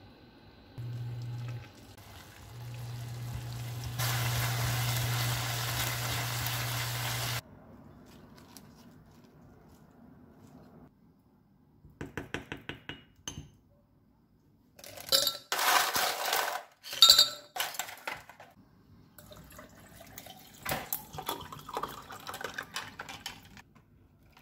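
Dakgalbi and udon sizzling in a frying pan on an induction hob, with a low hum that switches on and off, and a steady hiss that cuts off suddenly about seven seconds in. Later a spoon taps and scrapes quickly in a small ceramic dish, then dishes and cutlery clink and clatter loudly several times.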